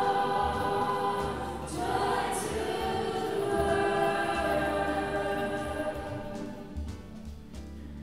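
Choir singing, with long held notes; the singing grows fainter near the end.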